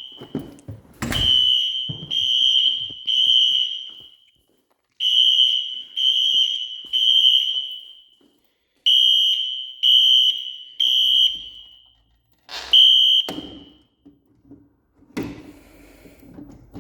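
Fire alarm horn sounding a high-pitched tone in the three-pulse temporal pattern, the standard evacuation signal. It gives three short blasts, a pause, and repeats, then cuts off after a single blast about thirteen seconds in.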